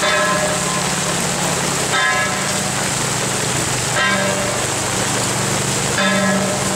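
Heavy rain hissing steadily, with a short ringing tone struck about every two seconds over low sustained tones.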